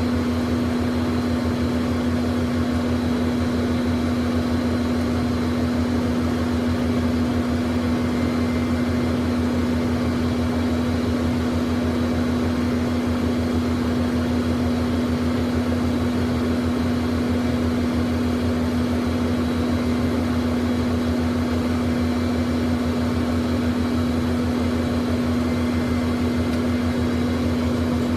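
Learjet's jet engines idling, heard inside the cabin: a steady hum with one strong low tone over a low rumble and a faint high whine, unchanging throughout.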